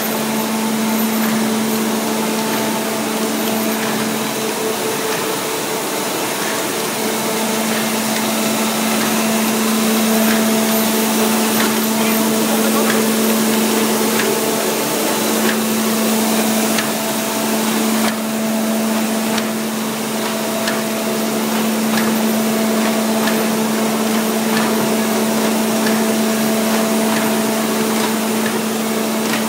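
Nanjiang WFD-430 roll-fed paper bag machine running: a steady mechanical hum with a few constant higher tones, over a dense stream of faint ticks from its moving parts.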